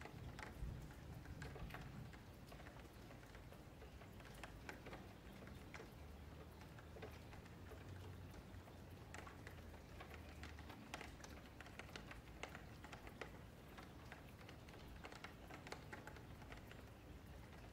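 Faint, irregular clicks of a computer mouse and keyboard, over a low hum.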